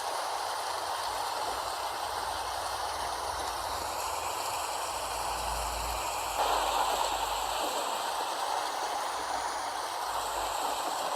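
Steady rain falling, an even wash of noise that swells slightly about six seconds in.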